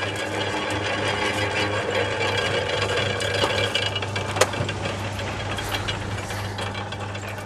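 Belt-driven sugarcane juice crusher running and pressing cane: a steady hum with the continuous rattle of its gears and rollers, and one sharp click a little past halfway.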